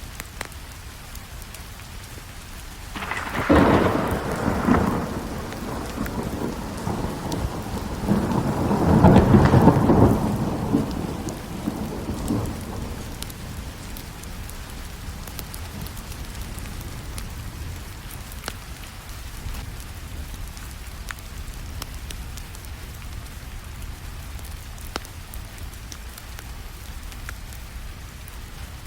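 Steady rainfall with a long roll of thunder. The thunder starts about three seconds in, swells to its loudest near the ten-second mark and dies away a couple of seconds later. Faint scattered crackles from a fireplace sound under the rain.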